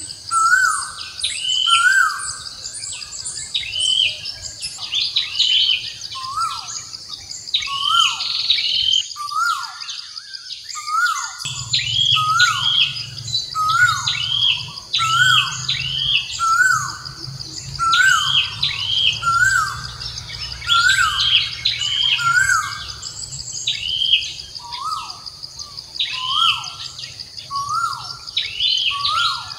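Birds chirping over and over, short hooked calls about once a second, over a steady high insect drone.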